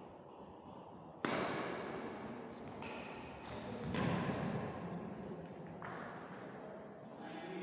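Badminton rally: badminton rackets striking a shuttlecock back and forth, about five sharp hits a second or so apart, each echoing in the hall, the first the loudest. A short high squeak about five seconds in.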